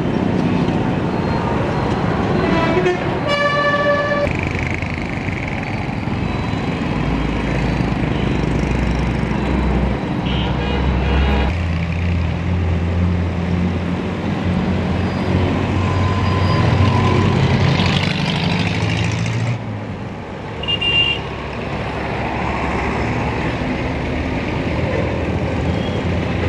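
Busy street traffic: buses, cars and motorcycles running past with engine drone. Vehicle horns sound a few times: a loud blast about three seconds in and shorter toots later.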